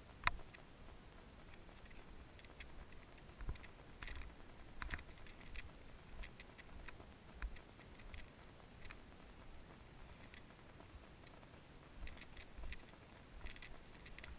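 Scattered clicks and knocks of a mountain bike moving slowly over a rough, branch-strewn trail, with the sharpest click about a quarter second in over a faint low rumble.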